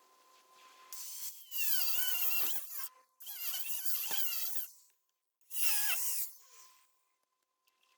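A handheld power tool run in three bursts of a second or two each, its pitch wavering as it loads and eases.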